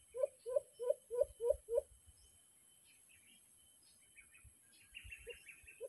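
A bird's low hooting call: a run of short, evenly spaced hoots, about three a second, that stops about two seconds in and starts again near the end. Higher, thinner bird chirps come in between.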